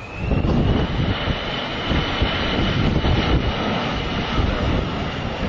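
Jet engines of an easyJet Airbus A320-family airliner spooling up: a fan whine rises in the first second and then holds high over engine rumble and wind buffeting the microphone. This is thrust being added as the airliner aborts its crosswind landing and goes around.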